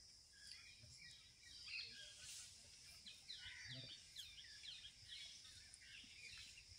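Faint outdoor ambience: small birds give a quick series of short chirps partway through, over a steady high insect drone.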